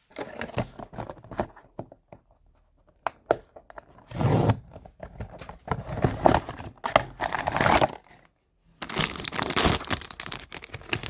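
Blind box packaging being torn open and crinkled by hand, in several bursts of tearing and rustling with short pauses between them.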